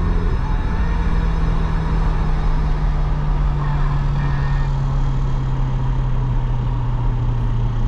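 Ferrari 488's twin-turbo V8 heard from inside the cabin while cruising, a steady drone that slowly drops in pitch as the car eases off, over constant road and tyre noise.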